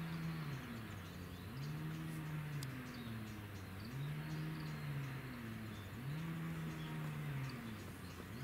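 A low mechanical hum that sags in pitch and swells back up at a regular pace, about once every two seconds, with a few faint clicks.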